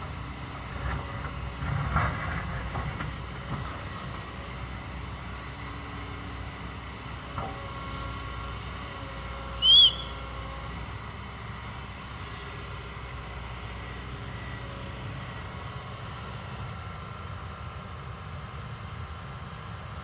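Kobelco hydraulic excavator's diesel engine running steadily, with a few knocks in the first few seconds and another a while later. About halfway through there is a short, loud, high-pitched chirp.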